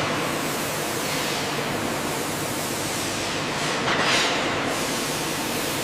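Steady rushing hiss of industrial process noise, swelling briefly about four seconds in.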